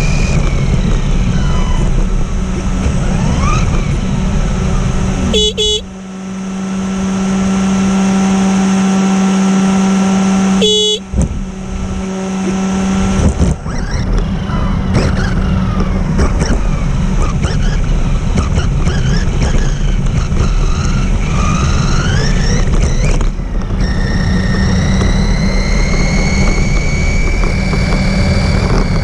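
Electric RC car motor whining, rising and falling in pitch with the throttle, over steady tyre and road noise. A steady low hum runs under the first half, and the sound drops out briefly twice.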